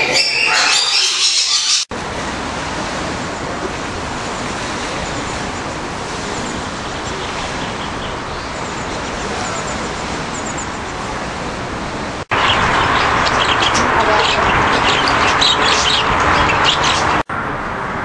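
Rainbow lorikeets chattering with shrill high calls for about two seconds. Then the sound cuts abruptly to a steady noisy hiss with faint high chirps, which turns louder and full of small clicks about twelve seconds in.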